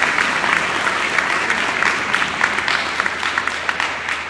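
Audience applauding: dense, many-handed clapping that eases slightly near the end.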